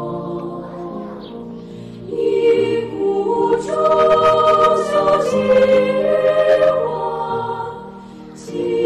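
Soundtrack music with a choir singing long held notes in chords, swelling about two seconds in and falling away near the end.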